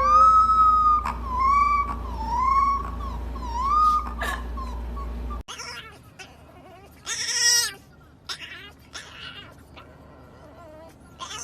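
Puppy howling: a high, wavering howl that rises and falls several times over about four seconds. It then breaks off suddenly and gives way to softer whimpering, with a short shrill cry a couple of seconds later.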